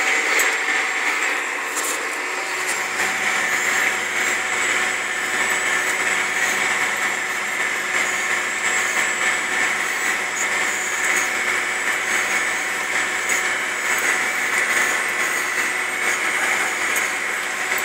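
Tractor running steadily under load, heard from inside its cab while it pulls a tillage disc through the soil: an even mechanical drone with a strong hiss over it.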